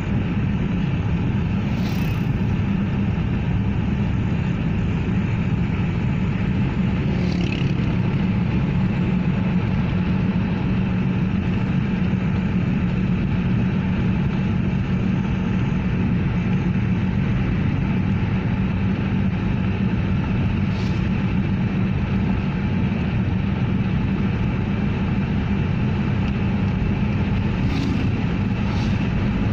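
Steady drone of a car's engine and tyres on the road, heard from inside the moving car's cabin, with a few faint clicks.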